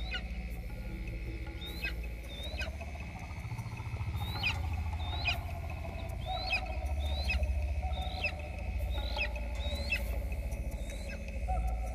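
Juvenile black eagle chirping faintly: a string of about a dozen short, thin calls, each dropping sharply in pitch, repeated roughly once a second over a low steady drone.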